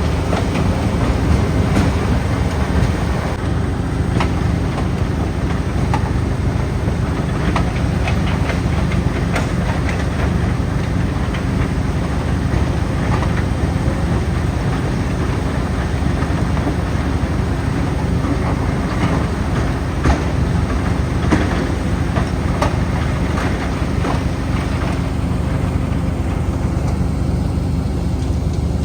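Mobile asphalt crusher running under load: a steady diesel engine drone with broken asphalt chunks clattering and knocking through the crusher.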